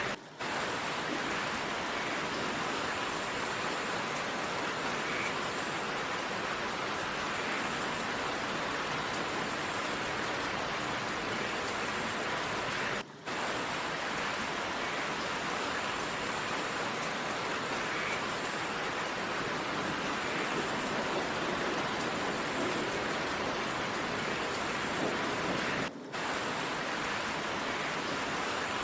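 Steady heavy rain, a dense even hiss with no thunder. It drops out for a fraction of a second three times, about every 13 seconds.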